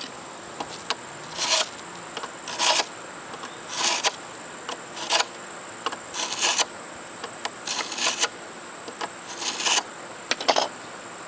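About eight rasping strokes of a hand sharpener drawn across the edge of an old, rusty steel lawn mower blade clamped in a vise, one stroke every second or so. The blade is still dull after this hand sharpening.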